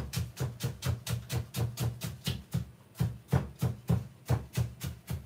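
Knife chopping spring onions on a wooden cutting board: quick, even chops, about four a second.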